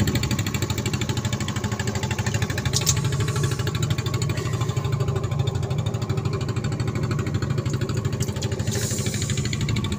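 Small engine of a hookah-diving air compressor running steadily with a fast, even pulse, feeding air down the divers' hoses. A brief click about three seconds in and a short splash of water near the end.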